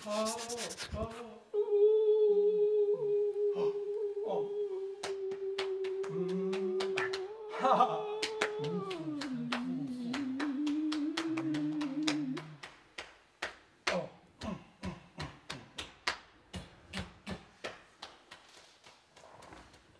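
A man's voice holds one long steady note, then slides down to a lower note about eight seconds in and holds it for a few more seconds. A run of soft clicks follows, about two a second, growing fainter.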